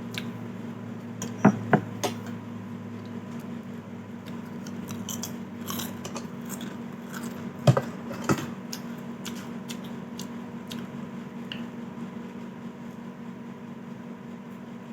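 A spoon clinking against a bowl a few times, two sharp taps near the start and two more about halfway through, over a steady low electrical hum.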